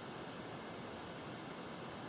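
Steady faint hiss of room tone, with the washing machine stopped and silent at the end of its cycle.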